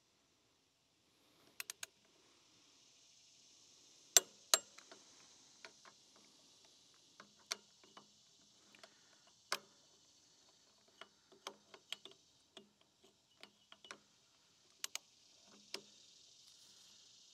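Torque wrench ratcheting and clicking as cylinder head bolts on a Kohler engine are drawn up to just over 30 foot-pounds: irregular sharp clicks, some in quick pairs, the loudest pair about four seconds in.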